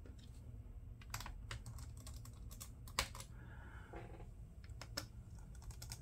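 Scattered light clicks and taps of a small screwdriver tightening the mounting screws of a replacement LCD panel into a Dell Latitude 5480 laptop lid, with a brief faint rasp a little past halfway.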